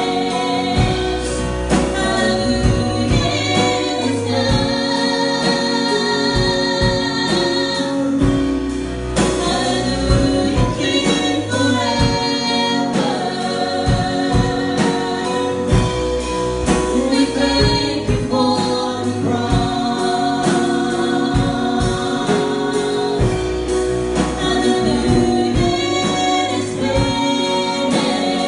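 Gospel worship song: voices singing over a band, with a steady drum beat.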